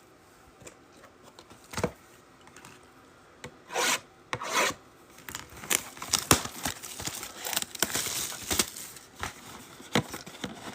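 Handling noise from a mega box of football trading cards being opened and emptied: cardboard and packaging rubbing and scraping, with a tap, then two short scrapes about four seconds in, then steady rustling and clicking as the packs are pulled out.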